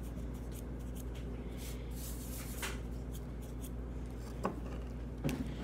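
Faint scraping and rubbing of a metal spoon stirring sticky homemade slime in a bowl, with a few small clicks of the spoon against the bowl, over a steady low hum.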